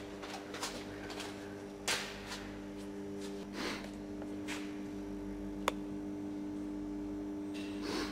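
A steady low hum held on a few fixed pitches, with scattered rustles and soft clicks and one sharp click about five and a half seconds in.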